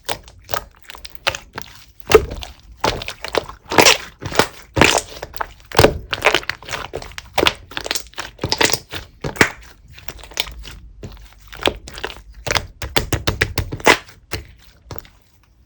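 Clear slime being pressed, squeezed and stretched by hand, giving an irregular run of sticky pops and clicks, several a second, that stops just before the end.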